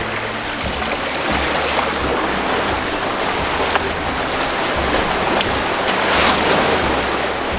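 Sea surf washing in, a steady rushing that swells into a louder wave about six seconds in.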